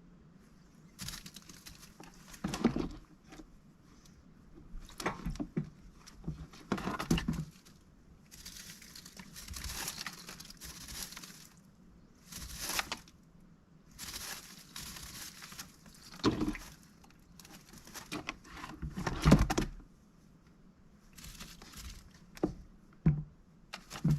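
A mallard duck moving about in its indoor pen, making bursts of rustling and scuffling with a few light thumps. The bursts come every second or two, with short pauses between them.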